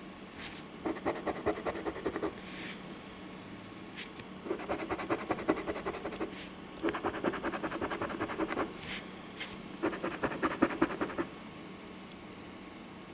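A copper penny scraping the coating off a paper Mega Crossword scratch-off lottery ticket: four bursts of quick back-and-forth strokes with short swishes between them.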